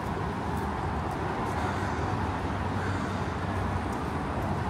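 Downtown street ambience: a steady rumble of traffic with a constant hum, no single sound standing out.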